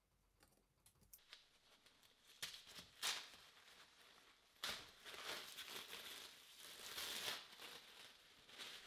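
Faint crinkling of paper and ripping of blue masking tape as paper is wrapped and taped around a metal part. There is a run of short rustles and rips, the longest lasting a couple of seconds just past the middle.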